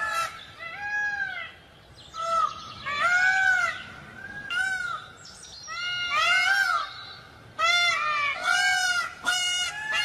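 Peacocks giving loud, short honking calls again and again, each call rising and falling in pitch, about a dozen in quick runs, some overlapping as more than one bird calls.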